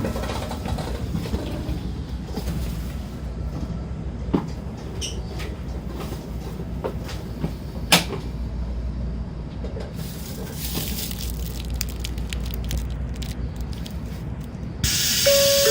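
Shinkansen passenger car running at speed: a steady low rumble with scattered sharp knocks and clunks, two louder ones about four and eight seconds in. The uploader suspects these knocks, loud for a normal run, may be an abnormal noise, perhaps from the car-to-car coupling area. Near the end a sudden loud hiss sets in.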